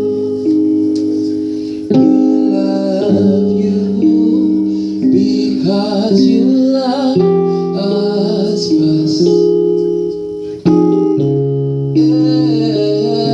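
Slow worship music: a keyboard playing held chords that change every couple of seconds, with a voice singing softly over it.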